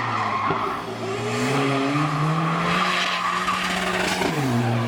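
Hillclimb race car engine at high revs: its pitch climbs over the first two seconds, holds, then drops sharply a little after four seconds as the driver lifts or shifts down. Tyre noise runs under the engine.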